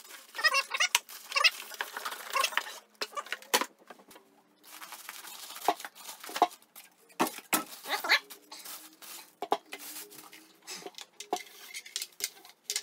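Unboxing handling noise: a thin plastic bag rustling and crinkling as foam packing end caps are pulled off a portable speaker, with scattered small knocks and scrapes of the packaging on the table.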